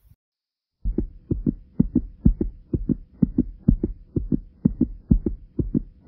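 A person's heartbeat: a quick, regular run of paired lub-dub thumps, about two beats a second, starting about a second in after a short silence, with a faint steady hum beneath.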